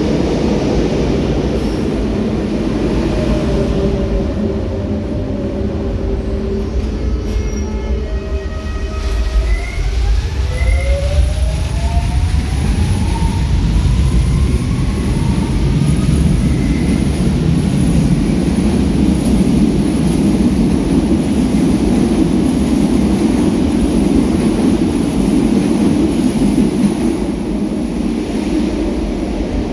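Electric commuter trains in an underground station: the low rumble of a train moving along the platform, with a motor whine rising in pitch about eight to twelve seconds in as a train accelerates. From about twelve seconds on, a steady, louder rumble of wheels on rails as another electric train runs through.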